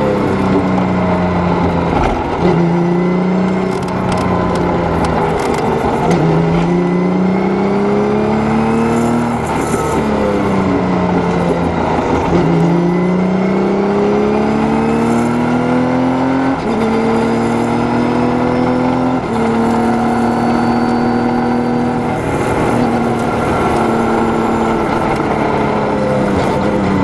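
Formula 3000 race car engine heard onboard at speed on track, its note rising under acceleration, falling away when braking into corners, and jumping in steps at gear changes.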